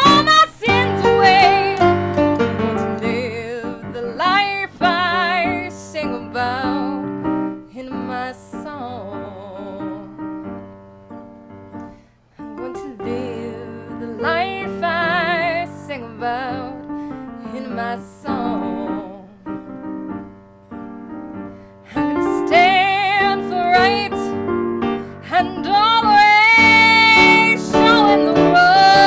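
Gospel song sung solo with a wide vibrato over piano accompaniment, in long held and sliding notes. The voice drops back for a few seconds in the middle, then returns strongly toward the end.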